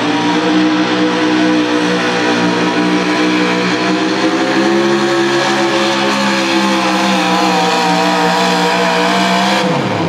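Pulling truck's engine running hard at a steady high pitch under load, dragging the weight sled down the track; just before the end the revs fall off sharply as the throttle is let off.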